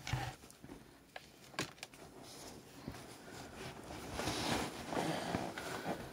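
Rustling of plastic packaging and things being handled in a bag, with a few light clicks in the first two seconds and louder rustling from about four seconds in.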